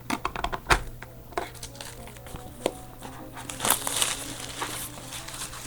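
Crinkling plastic wrap with scattered clicks and taps as a trading-card box is handled and unwrapped; the sharpest tap comes about a second in.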